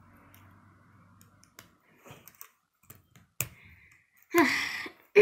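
K'nex plastic rods and connectors clicking as they are snapped and pressed together: a handful of separate sharp clicks, the loudest a little over three seconds in. Near the end comes a brief, louder vocal sound.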